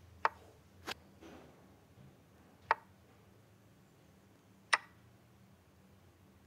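Chess program's piece-move sound effects: four short, sharp clicks, spaced unevenly across a few seconds, as moves are played on the digital board.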